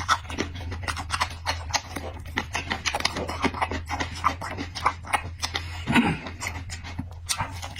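Close-up chewing, with a rapid, irregular crunching and crackling of crisp air-fried food, over a steady low hum that stops about six seconds in.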